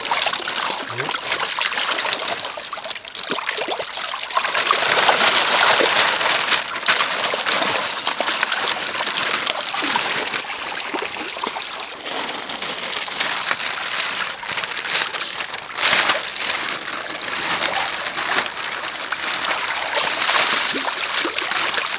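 Water splashing and sloshing without pause, in uneven surges, as koi thrash in shallow pond water while they are harvested.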